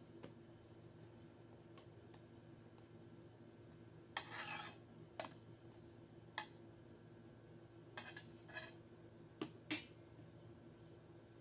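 A metal slotted spatula scraping and clinking against a frying pan as flatbreads are pressed and turned: a longer scrape about four seconds in, then a handful of short, sharp clinks, the loudest near the end.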